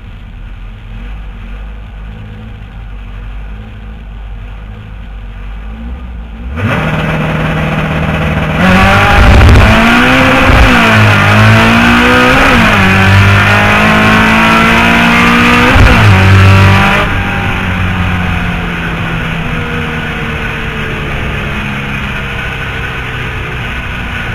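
Air-cooled Volkswagen drag car engine: a low rumble, then a hard acceleration down the strip with the engine pitch climbing and dropping at each gear change, easing off and fading after about 17 seconds.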